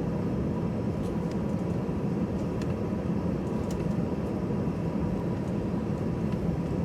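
Cabin noise inside a taxiing Airbus A320-214: its CFM56 jet engines running at low taxi thrust under a steady low rumble, with a faint steady whine.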